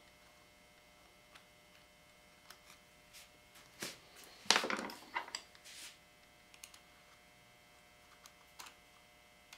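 Light metal-on-metal clicks and scrapes as a thin metal pick works at the slotted buttstock retaining nut of a Winchester 1903 rifle. A louder cluster of clattering clicks and scraping comes about halfway through.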